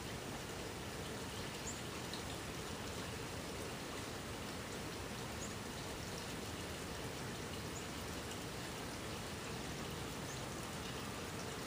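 Steady, even background hiss with no change in level, dotted with a few faint, scattered high ticks.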